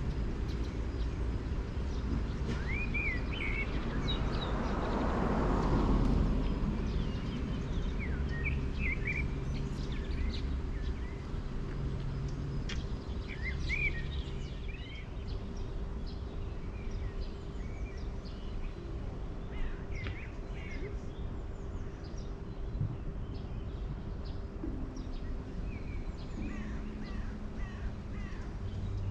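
Outdoor ambience: small birds chirping in short scattered calls over a steady low rumble, with a broad rushing swell about five seconds in.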